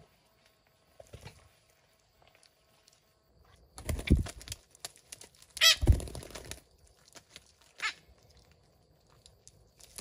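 Parrots flapping their wings and scuffling on a tree branch, in two short flurries about 4 and 6 seconds in, with a brief sharp sound near 8 seconds.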